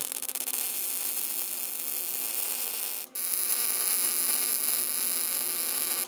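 MIG welder running a bead on steel channel iron, a steady arc noise. The arc breaks off for a moment about halfway through, then starts again.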